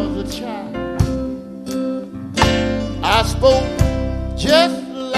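Live gospel song: a male lead singer's voice with guitar and band backing.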